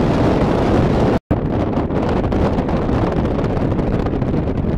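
Wind buffeting the microphone on a sailing ship's deck: a loud, steady rush with no pitch to it. It cuts out for an instant a little over a second in, then carries on.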